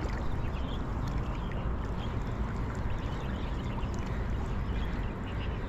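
Shallow river water sloshing and trickling around the legs of people wading slowly, under a steady low rumble.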